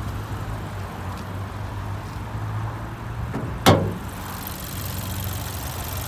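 The Buick Cascada's Ecotec engine idles with a steady low hum. A little past halfway there is one sharp clunk.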